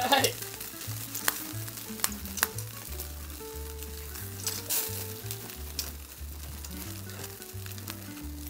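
Meat and green peppers sizzling on a wire-mesh grill over open flames, with a steady crackle and scattered sharp pops, the strongest right at the start. Soft background music with a slow stepping bass line underneath.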